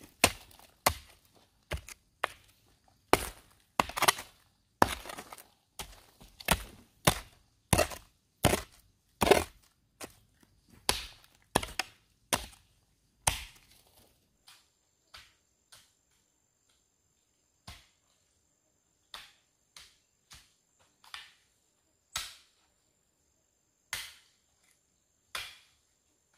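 A hand tool chopping, with sharp strikes about two a second, then fewer and fainter strikes from about halfway through.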